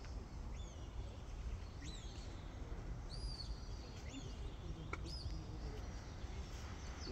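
Sheepdog handler's whistle commands: about five short, high whistle blasts, some sliding up and down and one held a little longer, spaced roughly a second apart. A steady low wind rumble on the microphone lies underneath.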